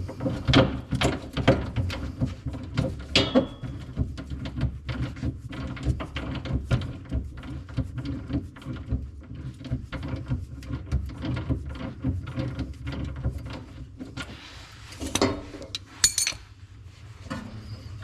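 Hand tools working on a shock-absorber mount: a long run of quick metallic clicks and rattles, with two louder knocks a little before the end.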